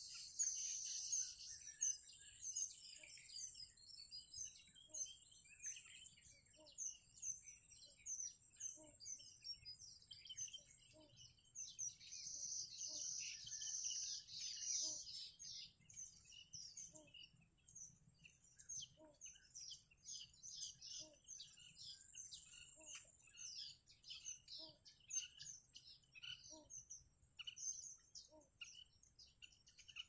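Many short, high bird chirps in quick succession, over a steady high-pitched insect drone that is loud for the first six seconds and returns for a couple of seconds later on.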